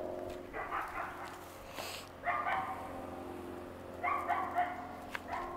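Seven-week-old Great Pyrenees–Standard Poodle puppy yipping and barking in about four short, high-pitched bursts.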